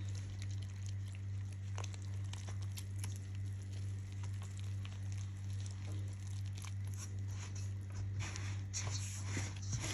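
A hand kneading flour and water into dough in a steel bowl: soft crunching and rustling of the flour, more frequent near the end, over a steady low hum.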